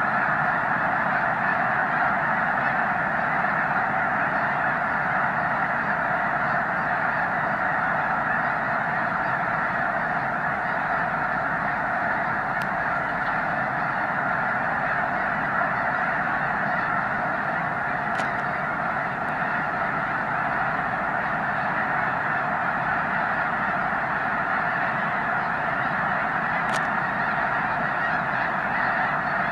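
A vast flock of snow geese calling all at once, a dense, steady din of countless overlapping honks with no single call standing out.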